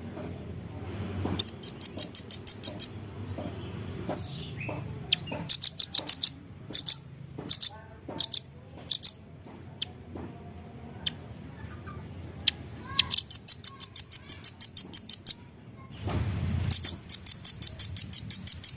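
Velvet-fronted nuthatch calling: fast runs of sharp, high, dry notes, about seven a second, broken by single notes. Four runs come about two seconds in, around six seconds in, from thirteen to fifteen seconds, and near the end.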